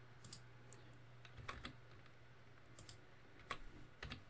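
Computer keyboard typing: a few faint, separate keystrokes with pauses between them as numbers are entered.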